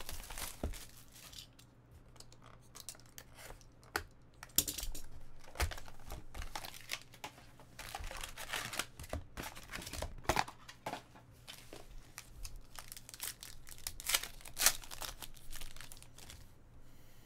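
Plastic shrink-wrap crinkling and tearing as a box of Upper Deck Ice hockey cards is unwrapped and opened, with irregular rustling of wrap, cardboard and packs and a few louder crackles.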